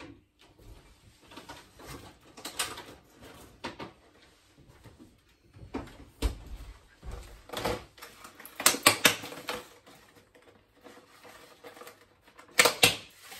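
Irregular knocks, clicks and clatters of kitchen items being handled as milk and eggs are fetched, with a quick run of clicks past the middle and the loudest clatter near the end as the egg carton is handled on the counter.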